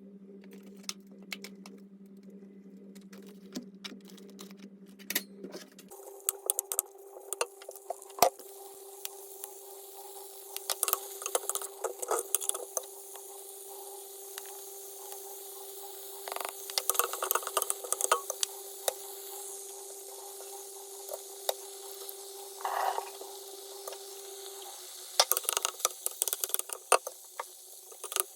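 Home kitchen cooking sounds: utensils and dishes clicking and clattering over a steady appliance hum. The hum steps up in pitch about six seconds in, with a hiss over it, and stops a few seconds before the end.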